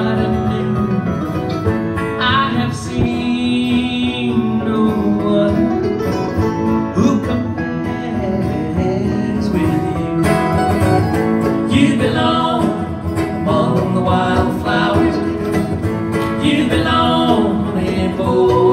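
Live acoustic string band in a bluegrass-country style: a mandolin and two acoustic guitars strummed and picked, with singing over them.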